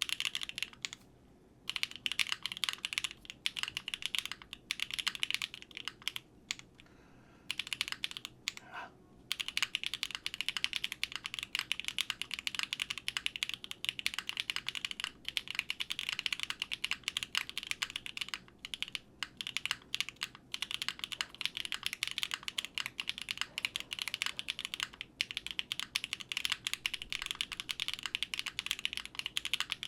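Fast, continuous typing on a Quantum60 custom 60% mechanical keyboard with an O-ring mount and polypropylene plate; the keystrokes sound solid, with no hollowness. Typing breaks off briefly about a second in, around seven seconds in, and near nine seconds, then runs on.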